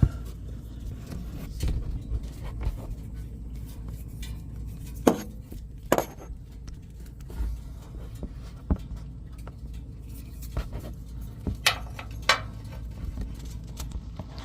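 Scattered sharp plastic clicks and knocks from hands working a wiring connector loose on the windshield washer reservoir's fluid-level sensor, over a low steady rumble.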